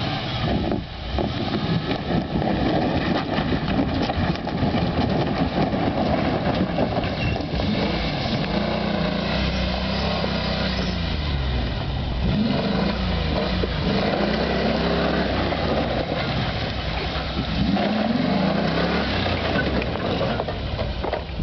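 A Ford Ranger pickup's engine working under load, revving up and down several times in the second half as it pushes a small boat hull across gravel. Its tyres crunch and spin on the loose gravel.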